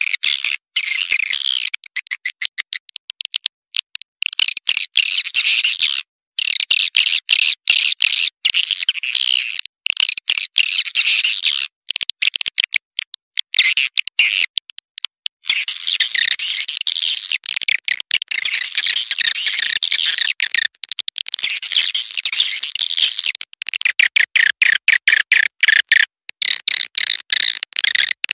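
Swiftlet calls, the kind played to lure swiftlets: rapid, high chirruping trills made of quick clicking pulses. They come in long runs broken by brief pauses, and the pulses space out into a slower rattle near the end.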